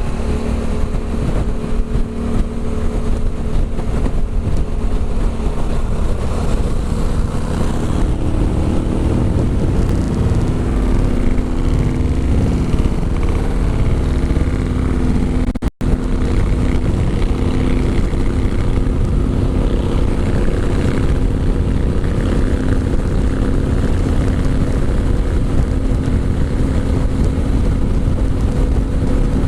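Adventure motorcycle with an Arrow aftermarket exhaust running at a steady cruise, engine note holding even under a dense rush of wind and road noise. The sound drops out for a split second about halfway through.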